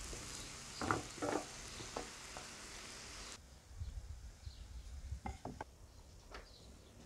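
Vegetables sizzling in a hot ridged grill pan while a wooden spatula stirs and scrapes them, with a couple of louder knocks about a second in. The sizzle cuts off suddenly about halfway, leaving quieter clicks and handling sounds.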